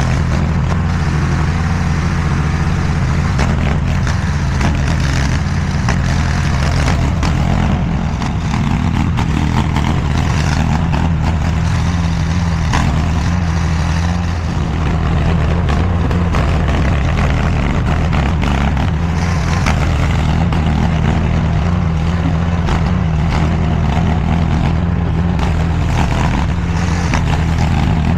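DIGGIT SCL850 stand-behind mini skid steer's engine running steadily at working speed, with scattered knocks and clanks from the machine as it works the dirt.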